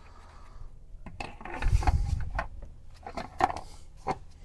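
Clicks, knocks and rubbing of a plastic golf cart steering wheel being pushed and shifted against its mount as it is tried for fit, with a louder scraping stretch around two seconds in. The wheel will not seat: its holes do not line up with the mount.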